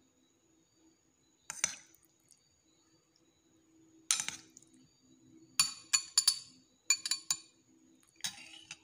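A spoon clinking against a stemmed dessert glass while jelly is spooned in: about ten short clinks, irregularly spaced, most of them bunched in the second half.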